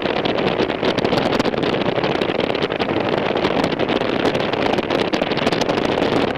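Piper Cherokee cabin noise with the power pulled back during the landing, heard through the headset intercom: a steady rush with fine crackling, which the instructor blames on a passenger's microphone picking up noise.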